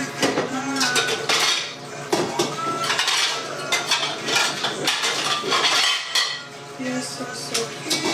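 Dishes, pans and cutlery clattering and clinking as they are handled, a dense run of short knocks throughout.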